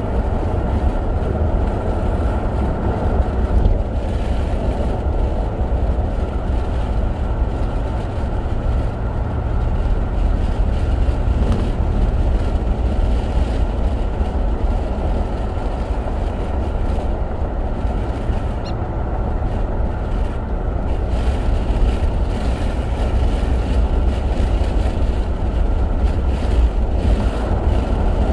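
Steady road and engine noise of a moving car, heard inside the cabin, with a deep low rumble underneath.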